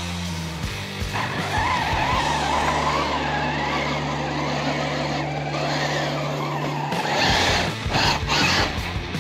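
Redcat Gen8 RC truck's electric motor whining and its tyres churning and splashing through icy slush and water, over background music with steady bass notes.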